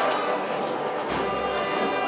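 Processional band music with sustained held notes: a Holy Week march played by the band accompanying the Virgin's float.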